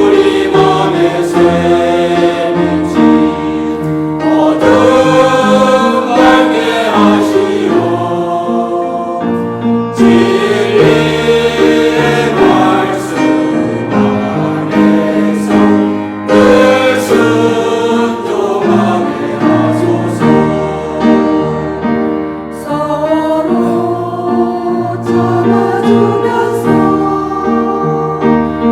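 Church choir singing a hymn in several voice parts, with held chords that move together.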